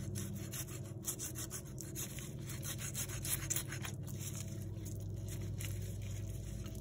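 A knife cutting and scraping through raw turkey meat and skin in repeated short strokes, over a steady low hum.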